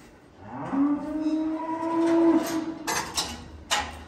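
A cow mooing once: one long call that rises in pitch at its start, holds steady for about two seconds, then drops away. A few sharp knocks follow near the end.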